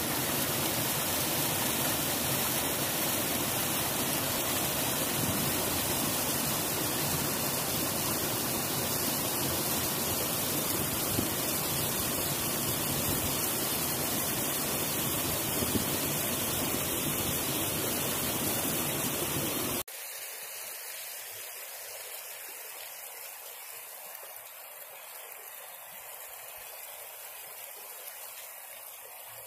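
Creek water tumbling over rocks in a small waterfall: a steady rush of water. About two-thirds of the way through it cuts abruptly to a quieter, thinner rush with the low end gone.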